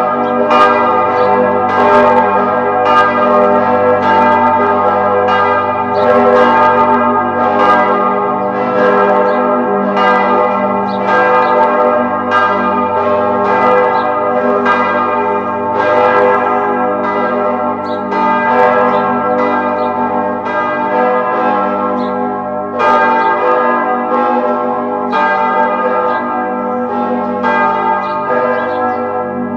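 Several church bells ringing in a continuous peal, struck about one and a half times a second, each strike ringing on into the next.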